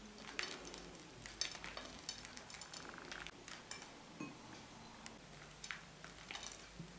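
Faint, scattered light crackles and taps: chopped nuts being sprinkled by hand over a pile of crisp meringues on a plate.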